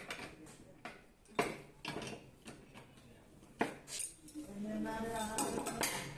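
Sharp metallic clinks and knocks, about half a dozen in the first four seconds, as a steel pipe wrench is worked against galvanized steel pipe and fittings. A voice is heard in the background near the end.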